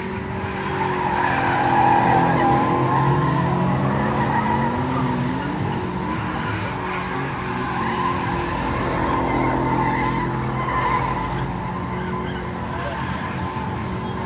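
A car spinning its tyres in a burnout and donuts: the engine is held at high revs, its pitch rising a few seconds in, while the tyres squeal and skid on the asphalt without a break.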